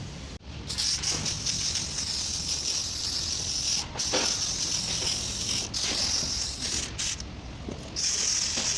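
Pressurised spray hissing in long bursts as the removed automatic transmission oil pan is cleaned, stopping briefly a few times and pausing for about a second near the end.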